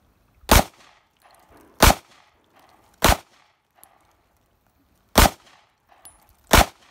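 A 9 mm Smith & Wesson M&P pistol fired five times in slow, aimed single shots about a second and a half apart, with a longer pause before the fourth. Each shot has a brief echo.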